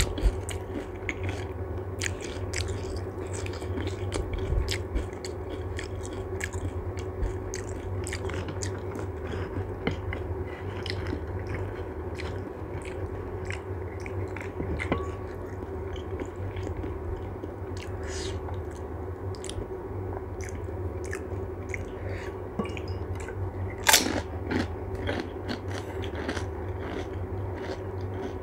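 Close-miked eating of pani puri (golgappa): crisp fried puri shells crunching between the teeth and being chewed, with many small crunches and one sharper, louder crunch late on.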